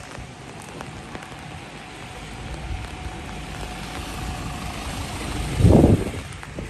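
A vehicle passing close by on a street: road and engine noise builds over several seconds and peaks in a loud low rumble about five and a half seconds in, then drops away.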